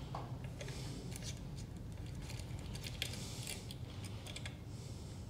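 Faint, scattered small metallic clicks and scrapes of a 2.5 mm hex key turning the little bleed port screw on a hydraulic disc brake caliper, with a rag rustling. A steady low hum runs beneath.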